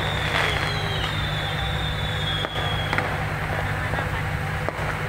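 Fireworks going off over a crowd: a few sharp cracks and thin high whistles that slowly fall in pitch, over a steady low noise.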